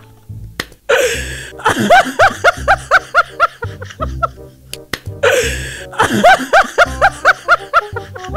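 A burst of rapid, rhythmic 'ha-ha' laughter, a canned laugh sound effect, played twice over background music.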